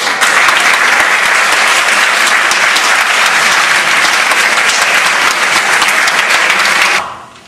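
Audience applauding steadily, the clapping dying away about seven seconds in.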